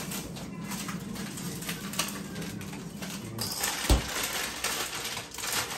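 Kitchen clatter: scattered light clicks and knocks of things being handled, over a light hiss, with one heavy dull thump about four seconds in.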